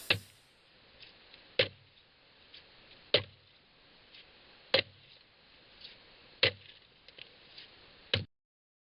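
Evenly spaced sharp knocks, one about every second and a half, with fainter ticks between them; they stop about eight seconds in.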